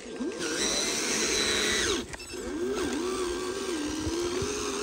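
Electric motor and gearbox of a loaded RC dump truck whining as it drives, the pitch rising and falling with the throttle and dropping away briefly about two seconds in.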